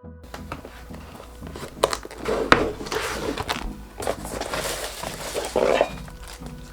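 Keyboard unboxing: cardboard box and plastic packaging rustling and crinkling as they are handled, with scattered sharp clicks and knocks.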